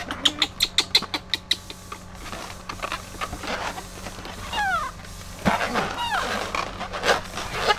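Baby monkey giving several high calls that slide down in pitch, a few in the middle and more near the end. Before them, in the first second and a half, comes a quick run of sharp clicks, about eight a second.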